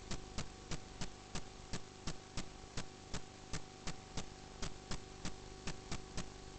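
Sewer inspection camera rig's audio: a steady electrical hum with sharp ticks repeating about three times a second.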